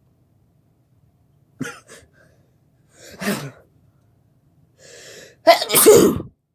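A person sneezing, the sneeze provoked by something stuck up the nose. There is a short sharp burst, then another about a second and a half later, then a drawn-in breath and a loud sneeze near the end.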